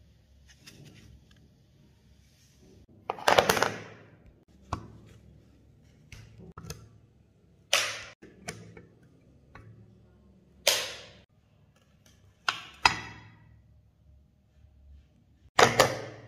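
Parts of a rusty Astra 4000 Falcon pistol knocking against plastic as it is taken apart. There are about half a dozen sharp clacks with fainter clicks between them, and two close together near the end.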